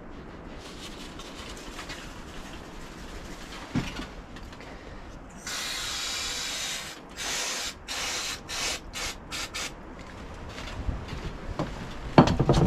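Aerosol brake cleaner spraying: one long hissing spray of about a second and a half, then a string of short bursts. A knock near the end.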